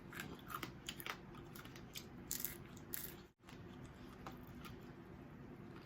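Quiet chewing and crunching of food close to the microphone, with scattered small clicks in the first three seconds. The sound cuts out briefly a little over three seconds in, leaving a faint steady hum with only occasional clicks.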